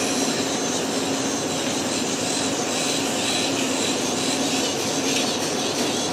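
Surgical burr running steadily as it grinds bone through a keyhole incision, shaving off a remaining bony prominence of the bunion. A continuous whirring with a steady hum under it.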